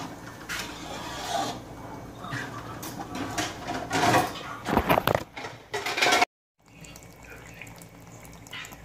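Spatula stirring and scraping thick tomato meat sauce in a metal wok, with irregular clatter of utensil on pan. About six seconds in the sound cuts off abruptly, and a quieter steady background follows.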